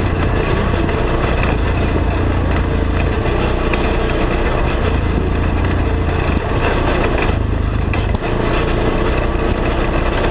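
Polaris RZR side-by-side engine running steadily under way on a dirt trail, heard from inside the open cab, with a brief drop about eight seconds in.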